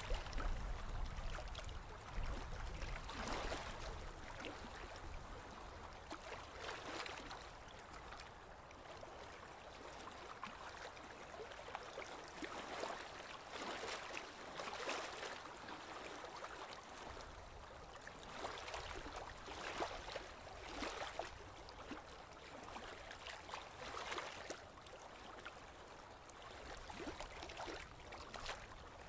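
Water splashing and slapping against the hull of a slowly moving boat, in irregular washes every second or two. A low rumble is heard under it, strongest in the first few seconds.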